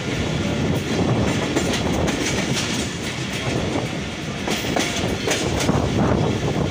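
Passenger train coach running along the track, heard from its open doorway: a steady rumble with scattered clacks of the wheels over rail joints.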